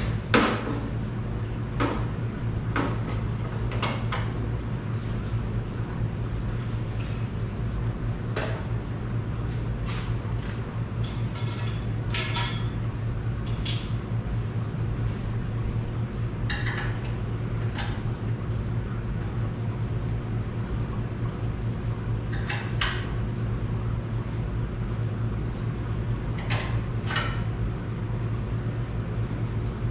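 Metal tools and engine parts clinking and knocking now and then, with a quick run of clicks around the middle, over a steady low hum.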